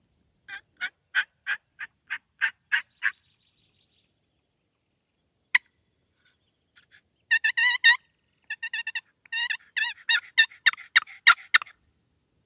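Turkey yelping: a steady run of about nine yelps, roughly three a second. After a pause comes a faster, denser string of turkey calls.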